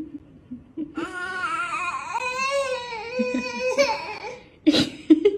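A baby crying in one long, wavering wail lasting about three seconds, followed near the end by two sharp knocks.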